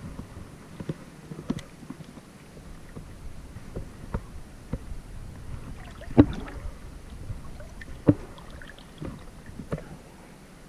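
Someone wading through shallow creek water: irregular sloshing steps with a low rumble and several sharp knocks, the loudest about six and eight seconds in.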